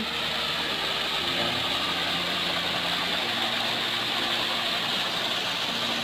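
Small waterfall pouring over rocks into a shallow pool: a steady rush of splashing water, with faint steady humming tones underneath.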